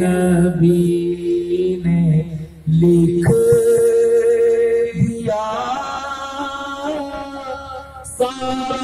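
A man singing a naat unaccompanied into a microphone, drawing out long held notes, with a short break about two and a half seconds in.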